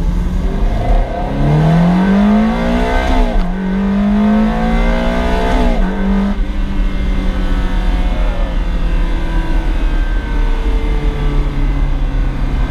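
Ferrari V8 engine accelerating through the gears: the revs climb and fall back at an upshift about three seconds in, climb again and fall at a second shift near six seconds, then run steadily.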